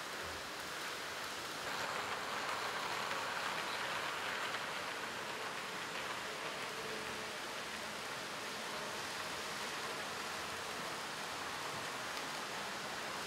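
Model steam locomotive and coaches rolling along layout track: a steady rushing of wheels on rails, a little louder for a few seconds about two seconds in as the train passes close.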